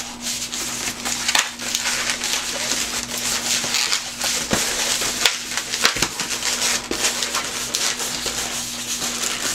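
An inflated 260 latex modelling balloon being twisted and folded into loop twists by hand: the latex rubs and crackles in a dense run of short clicks.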